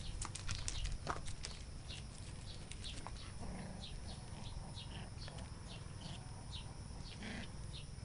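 Puppies playing on gravel: stones crunch and click in the first second, then two brief puppy whimpers. A short high chirp repeats about three times a second in the background.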